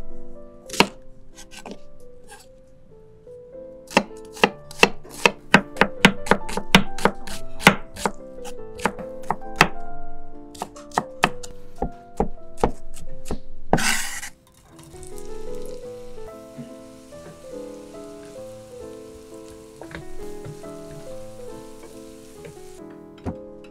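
Chef's knife chopping an onion on a wooden cutting board: a run of quick, sharp strokes lasting about ten seconds. Near the middle there is a loud burst as the diced onion goes into a hot pan, then a steady sizzle of the onion frying, all over background music.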